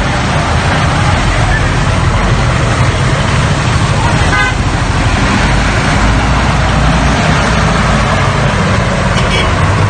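Steady, loud rumble and hiss of road vehicle noise, with a brief higher tone about four seconds in.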